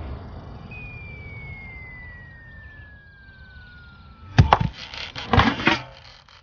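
Cartoon falling whistle: one tone gliding slowly down for about three and a half seconds, ending in a loud crash as the falling object lands, followed a second later by a second burst of crashing noise. A fading airplane engine rumble sits underneath at the start.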